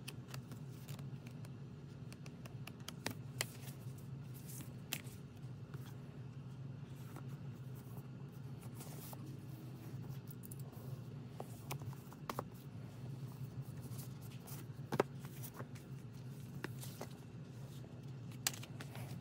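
Paper photobook pages being turned and rustling, with scattered light taps and clicks from cardboard album packaging and a plastic CD tray being handled, the sharpest click about fifteen seconds in, over a steady low hum.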